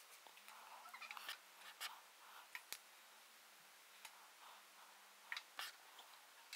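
Very faint TIG tack welding on steel tube: a quiet low steady hum with scattered small clicks and ticks.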